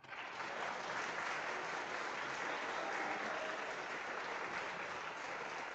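Large theater audience applauding steadily, coming in at once and holding to the end.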